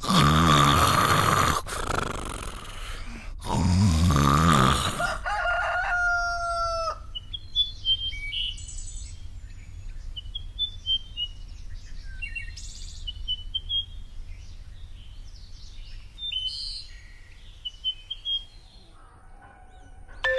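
A man snoring loudly twice, each snore a long rough rattle. Then a rooster crows once, and small birds chirp in short scattered bursts until near the end.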